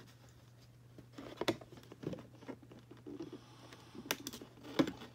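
Hands working a doll outfit free of a cardboard box backing: light rustling of card and plastic with a few sharp clicks, the loudest near the end.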